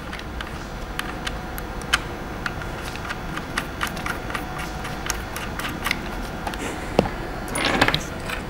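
Light, irregular clicks and taps of cable leads and terminals being handled and fitted onto a battery's wing-nut terminal posts, over a steady low room hum.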